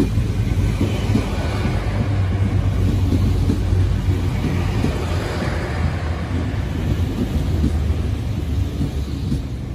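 GWR Class 802 bi-mode train rolling into a station platform on its underfloor diesel engines, a steady low rumble of engines and wheels on rail as it slows.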